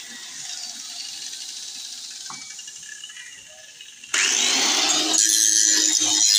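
Mains-powered handheld electric power tool running with a hissing whine that slowly fades, then switched on again about four seconds in, its motor whining up to speed.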